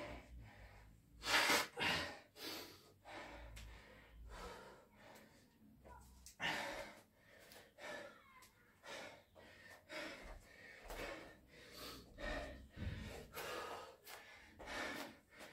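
A man breathing hard from exertion during a set of burpees and kettlebell thrusters, a steady run of short, heavy breaths and gasps, about one or two a second.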